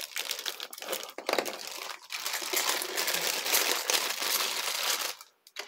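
Thin clear plastic bags crinkling as they are handled and opened, with the plastic funnel adapters inside shifting about. The crinkling stops a little before the end.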